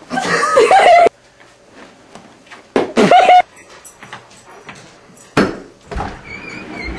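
A young woman's loud, high-pitched shrieks, wordless: one about a second long at the start and a shorter one about three seconds in.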